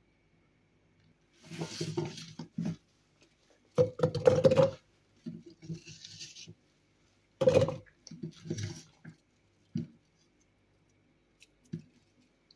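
Chunks of raw apple and carrot dropped by the handful into a tall plastic blender beaker, clattering against the plastic in several bursts, the loudest about four seconds in, followed by a few single knocks.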